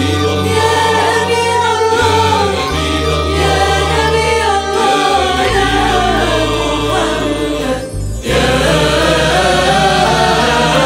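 Arabic devotional song in praise of the Prophet Muhammad: voices singing a melody over instrumental backing with long held bass notes, with a short break about eight seconds in.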